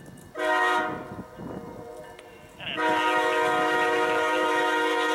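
Norfolk Southern SD40E locomotive's air horn sounding a short blast, then a long one that begins near the middle and is still going at the end. A short followed by a long is the close of the standard grade-crossing horn signal.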